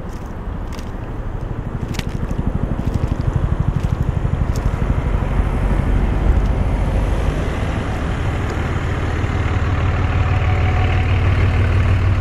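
A vehicle engine idling, a low steady hum that grows louder in the second half. A few sharp clicks come in the first two seconds.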